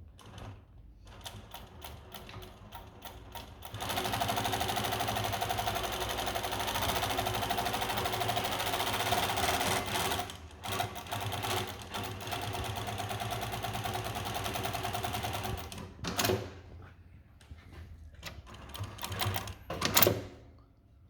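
Twin-needle post-bed lockstitch industrial sewing machine with a direct-drive motor. It starts with a few slow, separate stitches, then sews fast and steadily for about six seconds, pauses briefly, and runs fast again. It ends with slower stitching and clicks, including a sharp clack near the end.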